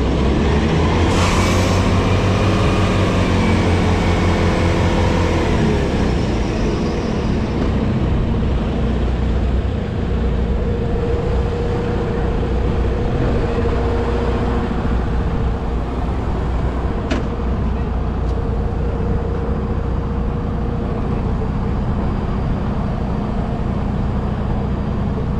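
Heavy tow truck's diesel engine pulling away, its pitch shifting over the first few seconds, with a short hiss about a second in. After that, a steady engine and traffic drone.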